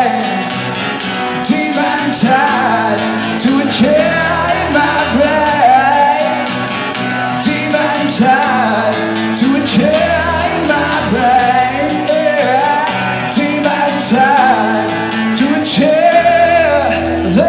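Male singer performing live with a strummed acoustic guitar.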